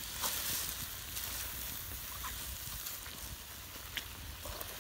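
Chicken pieces and dried red chillies cooking in an aluminium pan over an open fire: a steady sizzling hiss with scattered clicks as a wooden stick stirs them.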